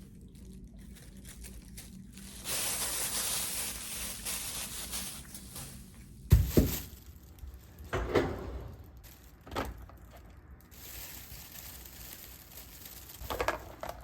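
Water running from a tap for a few seconds, then several sharp knocks and clatters, and a second, shorter run of water.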